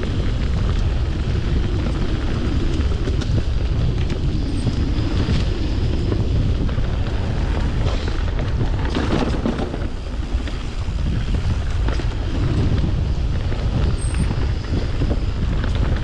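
Wind buffeting the microphone of a moving mountain bike rider, a steady low rumble, with scattered short clicks and rattles from the bike and trail.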